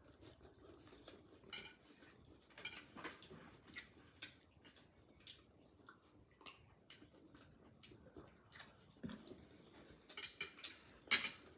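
Light, scattered clicks and clinks of chopsticks and steamed clam shells during a meal, with a denser run of louder clicks near the end.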